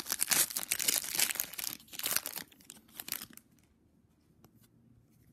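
Foil wrapper of a trading card pack being opened and crinkled in the hands, a dense crackle for about three seconds that then stops, leaving only a few faint ticks.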